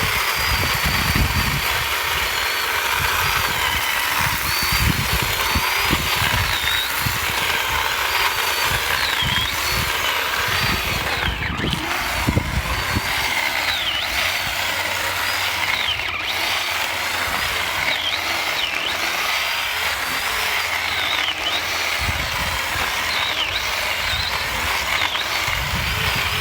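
Electric chainsaw cutting into the trunk of a dead pine, running without pause. Its high whine dips in pitch again and again as the chain slows under load in the wood.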